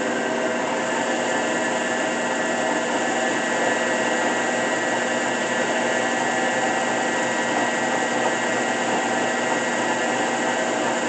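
Blanchard Model 11-16 vertical-spindle rotary surface grinder running under power, its wheel spindle and rotating magnetic chuck making a steady mechanical hum with a steady high whine. The chuck is turning in its higher speed range, where it runs quietly without the knock it has in low range.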